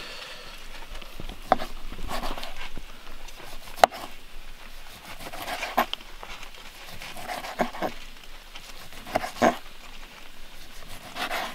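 A large knife slicing smoked venison on a plastic cutting board, the blade knocking on the board several times, sharpest about four seconds in, with fainter sounds in between.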